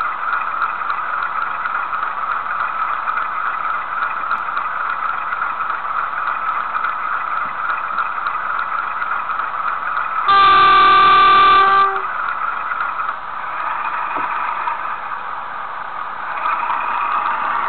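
Bachmann Class 47 model locomotive's DCC sound decoder playing a Class 47 diesel engine idling steadily. About ten seconds in, the horn sounds once for about a second and a half, the loudest thing here, and near the end the engine sound grows louder as the loco prepares to move off.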